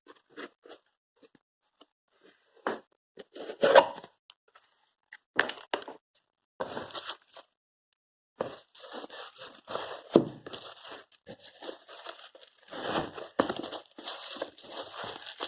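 A parcel's packaging being opened by hand: scattered handling clicks and rustles at first, then long stretches of tearing and crinkling from about the middle on.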